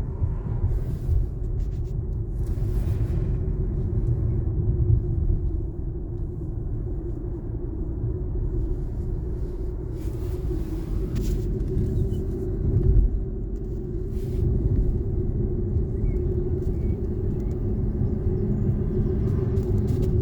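Road noise inside a moving car: a steady low rumble of engine and tyres with a steady hum, and brief whooshes around three and ten seconds in.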